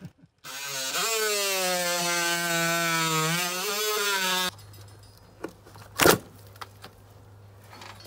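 Cordless oscillating multi-tool running steadily for about four seconds, its blade cutting the caulk in the joint between a brick chimney and the house, then stopping. A sharp knock follows about a second and a half later.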